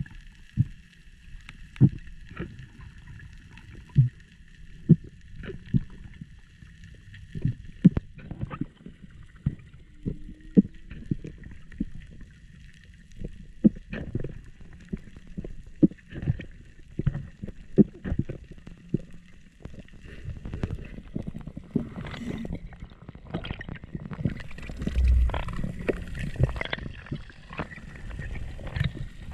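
Underwater sound picked up by a handheld camera: irregular muffled knocks and clicks over a faint steady whine. From about three-quarters of the way in, a louder rumbling rush of water and bubbles comes in as the encrusted rod and reel are lifted off the seabed.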